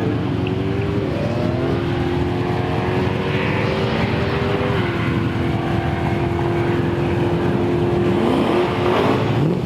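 A car's engine held at steady high revs, its pitch stepping down slightly midway and rising again near the end, as drag-racing cars rev on the start line.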